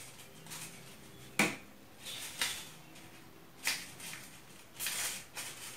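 Paper strips being handled and pressed into a glued paper-chain loop: a few short, crisp paper rustles about a second apart.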